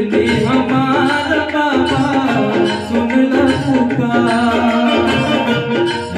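Hindi devotional bhajan: a male voice singing over a tabla-style rhythm loop from a Roland XPS-10 keyboard, with a keyed melody instrument playing along.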